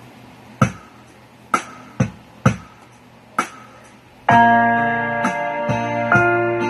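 Electronic keyboard: five sharp, unevenly spaced knocks, then about four seconds in sustained chords with a bass line begin, changing every half second to a second.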